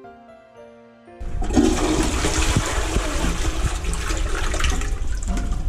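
Toilet flushing: a loud rush of water starts about a second in and keeps going.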